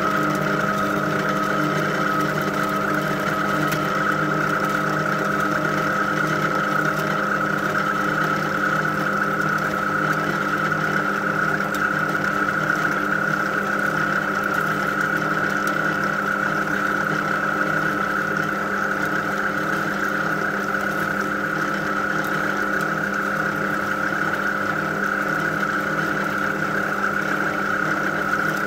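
Electric line-spooling machine running steadily, winding fishing line onto a reel spool: a constant hum with a high whine over it.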